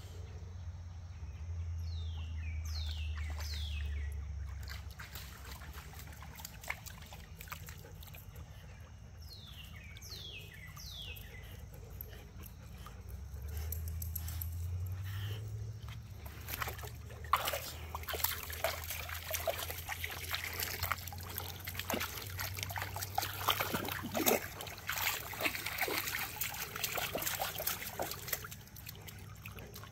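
Dogs swimming and wading in a shallow creek: water sloshing and splashing, busiest and loudest in the second half as they splash through the shallows. A few short falling whistles are heard early on.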